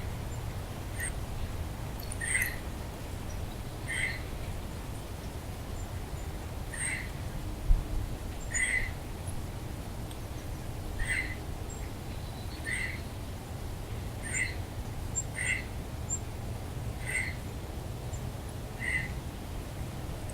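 An animal gives a short call over and over, about once every second and a half, over a steady low rumble. A single thump comes about eight seconds in.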